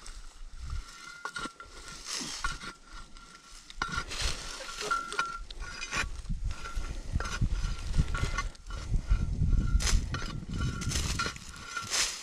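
A hand digging tool chopping and scraping into dry soil among crackling corn stalks, with repeated dull thuds and clicks. A metal detector beeps on and off at one high pitch throughout.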